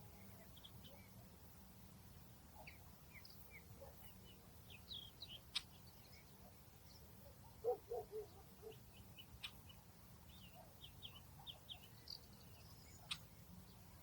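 Faint outdoor birdsong: scattered short, high chirps from small birds, with a few sharp clicks. About eight seconds in comes a quick run of lower notes, the loudest sound here, over a faint low steady hum.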